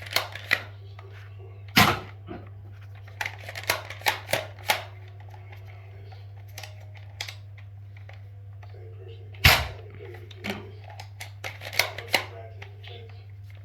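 Plastic clicks and clacks from a Nerf Elite toy blaster being handled, in irregular clusters, with two louder sharp cracks about seven seconds apart, over a steady low hum.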